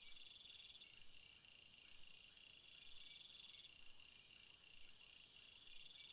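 Faint nature ambience of birds singing: a steady high chirping with three buzzing trills, each about a second long.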